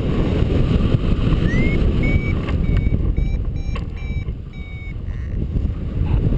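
Wind buffeting the microphone in flight under a paraglider. Over it a paragliding variometer gives a run of short, high beeps, about two a second, the first sliding up in pitch. Such beeps are the vario's signal that the glider is climbing in lift.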